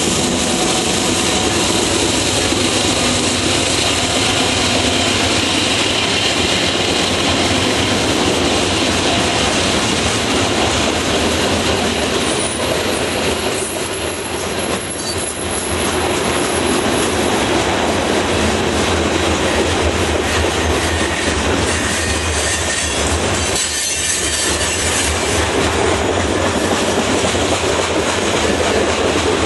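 Freight train of covered hopper cars rolling steadily past, with loud, continuous wheel-on-rail noise from the passing cars.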